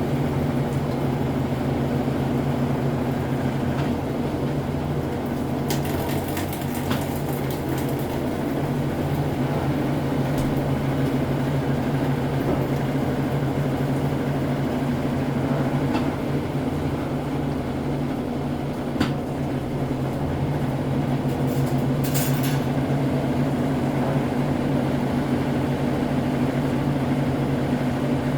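Brastemp Ative 11 kg (BWL11) washing machine in its intermediate spin, the motor and drum spinning at a steady speed with a steady hum. A few light clicks come through now and then.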